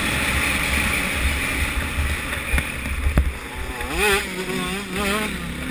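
Yamaha YZ125 two-stroke single-cylinder motocross engine running under way, with heavy wind buffeting on the microphone. About four seconds in, the engine note rises and then wavers up and down as the throttle is worked.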